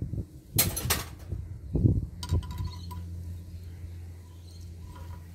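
Metal tool handling on a water pump: a spanner picked up and set onto a nut on the pump housing, with a rattling burst about half a second in, a knock near two seconds and a few light metallic clicks after it.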